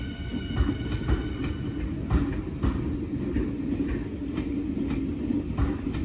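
Tobu Railway electric train running over the rails: a steady rumble with wheels clicking over rail joints every half second or so.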